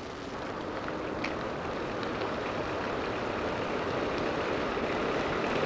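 Minivan approaching on a dirt road, its tyre and engine noise a steady rush that grows gradually louder as it draws near.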